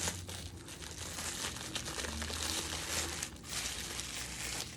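Packaging crinkling and rustling as a product is dug out of a shipping box and unwrapped, continuous and easing off near the end.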